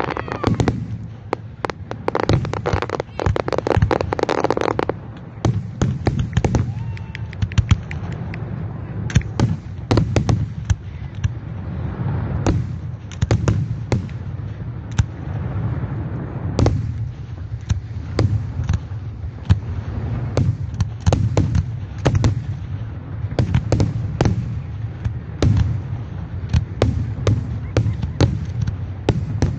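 Fireworks going off: a dense run of rapid crackling bangs for the first five seconds or so, then repeated sharp bangs, some in quick clusters, over a low rumble.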